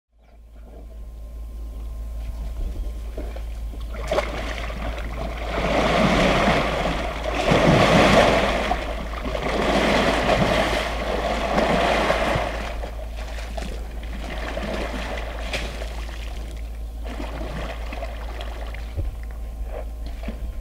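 Outdoor rushing noise over a steady low rumble, swelling louder for several seconds in the middle, then settling back to a steady level.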